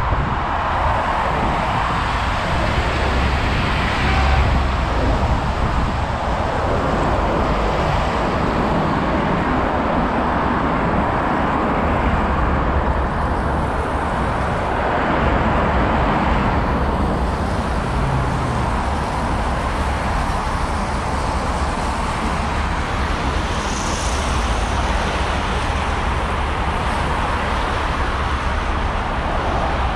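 Steady city road traffic: a continuous rush of car engines and tyres on a busy avenue, with a deep rumble underneath. Single vehicles swell louder as they pass, about four seconds in and again about fifteen seconds in.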